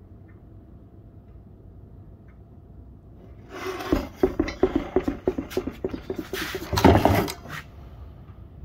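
A faint steady hum, then from about three and a half seconds in a quick run of rubbing, scraping and knocking from hands handling the oily exhaust header, loudest near the end before it stops.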